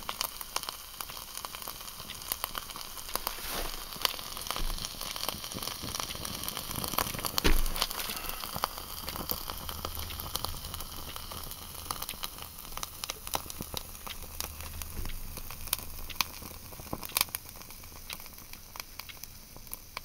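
Fire Dragon solid fuel burning in a Swiss Army stove, crackling and sizzling with many small sharp pops, and one louder knock about seven and a half seconds in. The fire dies down toward the end as the fuel burns out.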